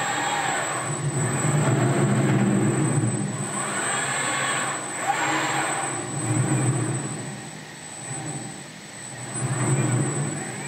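KUKA KR120 industrial robots' servo motors and gearboxes whining as the arms move, the sound swelling and fading in repeated waves with a pitch that rises and falls as each motion speeds up and slows down. A thin steady high whine runs underneath.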